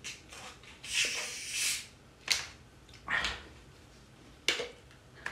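A plastic bottle of carbonated cola being unscrewed: two short hisses of escaping gas and a couple of sharp clicks from the screw cap.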